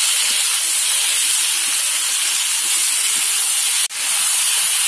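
Sliced potatoes sizzling steadily in hot mustard oil in a kadhai while a wooden spatula stirs them. The sound drops out for an instant about four seconds in, then returns.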